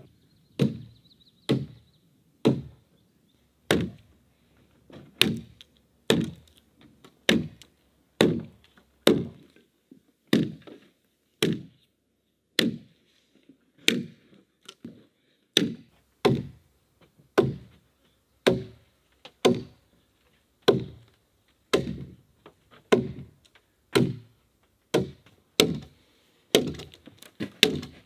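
Axe chopping into a peeled log, scoring a row of shallow cuts along it. Sharp blows in a steady rhythm, roughly one every second.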